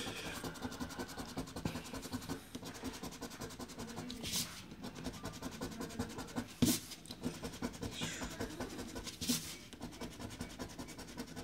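Scratch-off lottery ticket being scratched: quick, steady scraping of the silver coating off the card, with a few sharper strokes standing out along the way.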